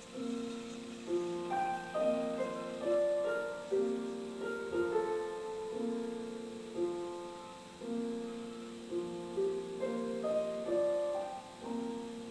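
Slow, gentle piano music: single melody notes that ring and fade, over a low figure repeating about every second.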